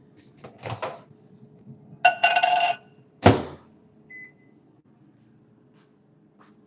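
Microwave oven in use: a brief rattle, a beep lasting under a second, the door shut with a loud thunk, then a single short keypad beep.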